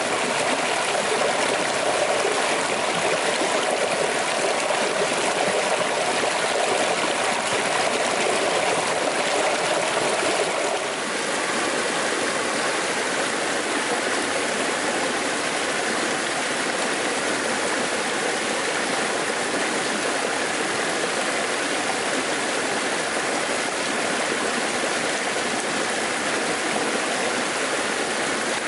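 Creek water running over rocks in a steady rush: a small cascade splashing between boulders, changing about a third of the way through to the more even sound of water flowing through shallow rapids.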